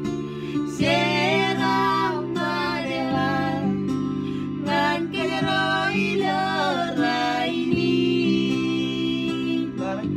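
A woman and a man singing a song in Marshallese together over sustained instrumental chords that change every few seconds.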